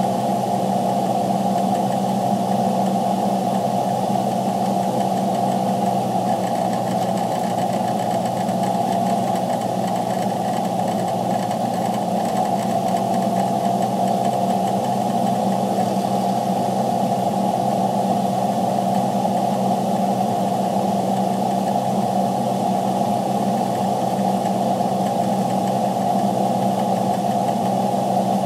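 Freightliner truck's engine running steadily, heard from inside the cab as an even drone that holds the same pitch throughout.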